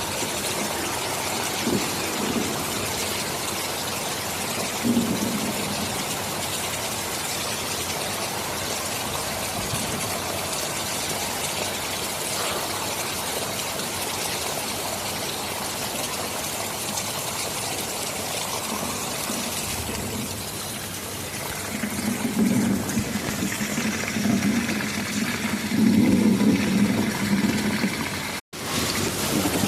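Steady hiss of heavy rain. About two-thirds of the way through, a low rolling rumble of thunder builds and swells in waves. The sound cuts out for an instant near the end.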